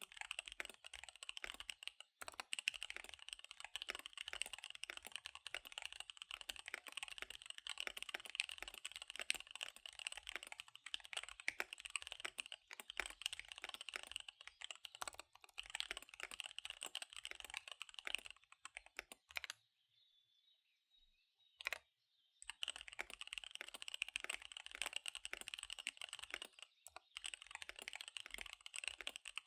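Fast typing on a KBD75 V3 mechanical keyboard with SP-Star Dark Magic Girl tactile switches and DSA keycaps: a rapid, steady patter of key clicks. The typing breaks off for about three seconds about two-thirds of the way through, with one lone keystroke in the pause, then resumes.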